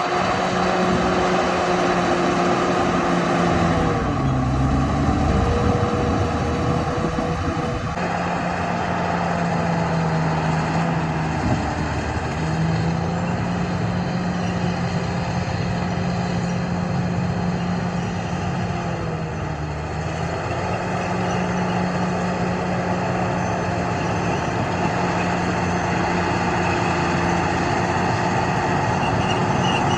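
Bulldozer's diesel engine running steadily under load. Its pitch sags and recovers three times as the machine works.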